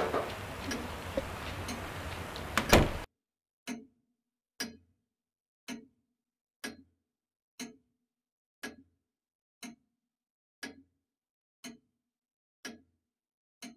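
Quiet room tone with a sharp knock near three seconds in, then a clock ticking about once a second against dead silence.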